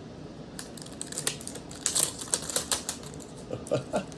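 Plastic wrapping on Pokémon card packaging being ripped open by hand by its tear strip: irregular sharp crinkles and crackles, busiest in the second half.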